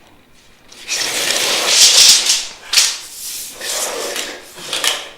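Rubbing and scraping noise lasting about four seconds, with several louder strokes.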